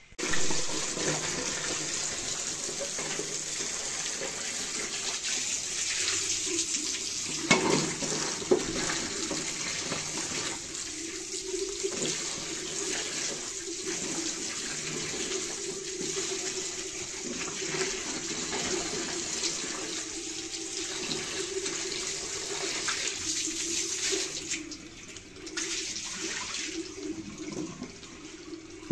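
Water running from a tap into a steel bowl as potatoes are washed by hand under it. A couple of sharp knocks about a quarter of the way in.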